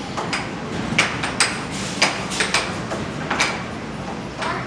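Air hockey rally on a Dynamo Fire Storm table: about eight sharp plastic clacks at uneven spacing as the puck is struck by the mallets and bounces off the table's rails.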